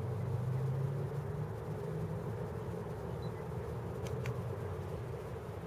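Distant road traffic, a steady low rumble that swells a little in the first second and a half as a vehicle goes by, with two faint, brief high ticks about four seconds in.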